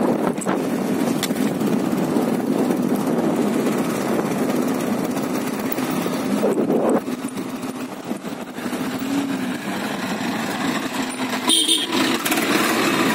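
Motorcycle engine running steadily while riding. It eases off about seven seconds in and picks up again about a second and a half later. A brief high-pitched sound comes near the end.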